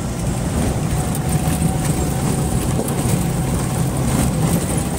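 Maruti Gypsy 4x4 heard from inside the cabin, its engine and tyres running steadily on a dirt track with a low rumble.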